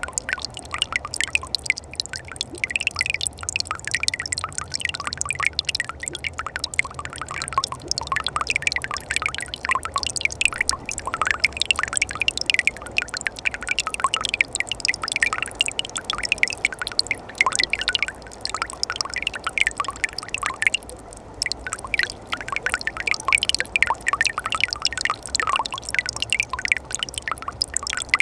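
Winter mountain stream: water trickling and gurgling over rocks, with a dense, irregular run of small drips and plinks over a steady rush.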